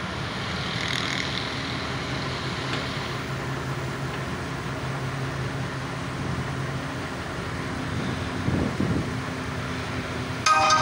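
Kato mobile crane's diesel engine running steadily with a low drone, swelling louder briefly about eight and a half seconds in.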